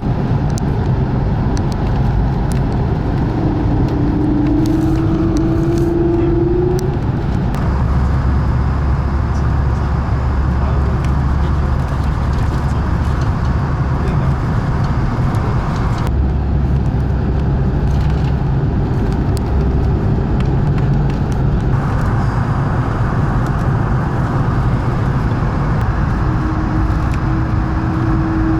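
Cabin noise inside an Airbus A220-300 airliner descending through turbulence: a loud, steady rush of airflow and engine noise over a low rumble, with scattered light clicks and rattles. A faint steady hum comes in twice.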